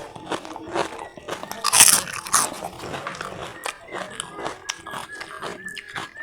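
Close-miked eating: wet chewing, lip-smacking and crunching clicks in quick succession, with one louder burst about two seconds in.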